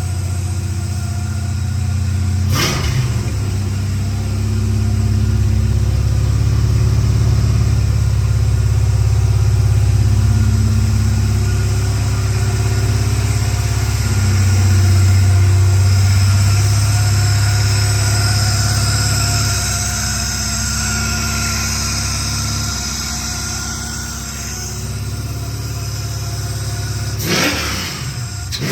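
1969 Plymouth Road Runner's V8 engine running with a deep, steady exhaust note, getting louder through the middle and easing off after about twenty seconds. A sharp knock sounds about two and a half seconds in, and a few more near the end.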